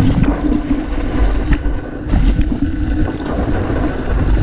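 Yeti SB 4.5 mountain bike rolling fast down a dirt trail: tyre rumble and wind buffeting the GoPro Hero 5 microphone, with scattered knocks and rattles from the bike over bumps.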